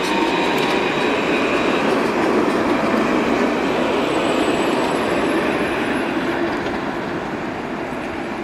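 Citadis low-floor tram passing close by, then pulling away: a steady rumble of wheels on rail with a faint high whine over it in the first few seconds, slowly fading toward the end.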